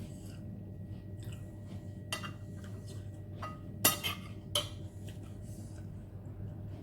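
Eating utensils clinking against a bowl of instant noodles, four or five sharp knocks with the loudest about four seconds in.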